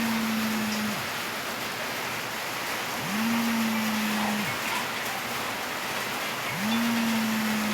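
Samsung Galaxy A32 5G's vibration motor buzzing in pulses for an alarm: a low hum that rises quickly at each start, holds steady for about a second and a half, then stops, repeating about every three and a half seconds. One pulse ends just under a second in, another runs from about three seconds in, and a third starts near the end.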